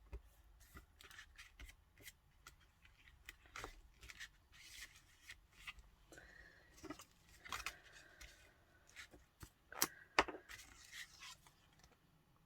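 Paper and card being handled at close range: irregular rustles, light taps and clicks, with two sharper clicks about ten seconds in.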